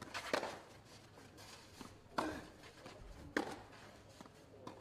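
Tennis ball struck by rackets in a serve-and-rally exchange on a clay court: four sharp pops, the serve about a third of a second in and then shots about one and a quarter to two seconds apart, with fainter ball bounces between them.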